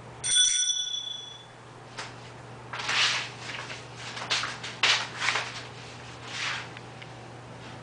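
A small bell rings once, its tone dying away within about a second. A puppy then scuffles and scrambles on a tile floor while playing with a tennis ball, in a run of short scrapes and rustles.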